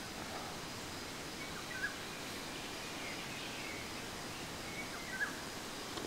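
Woodland ambience: a steady background hiss, with short bird chirps about two seconds in and again about five seconds in.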